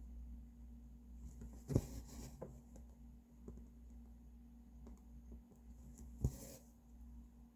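Cross-stitching by hand, heard twice: each stitch is a sharp tap as the needle pierces the fabric, followed by a short hiss as the thread is drawn through, about two seconds in and again near the end. Small ticks and a low steady hum lie under it.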